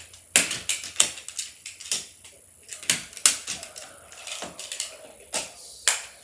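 Magnetic building blocks clicking and clacking as they are handled and snapped together, a string of sharp, irregular clicks about two a second.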